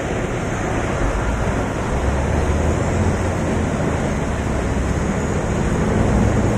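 Hongxin HX2000-1000 horizontal grinder running, grinding waste wood such as pallets and board offcuts: a loud, steady dense noise over a low drone that grows stronger about two seconds in.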